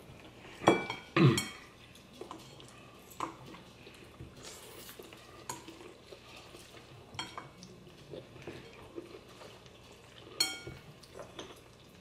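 Fork and chopsticks clinking against bowls while eating noodles: two sharp, ringing clinks about a second in, another near the end, and softer scattered clicks and scrapes between.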